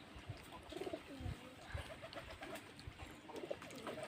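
Faint pigeons cooing, a low repeated call, with a few soft low knocks.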